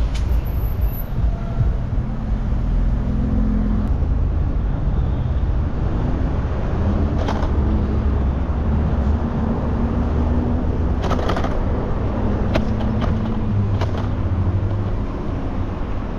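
Road traffic: vehicle engines running in a steady low rumble with shifting hums, and a few short sharp clicks from about seven seconds in.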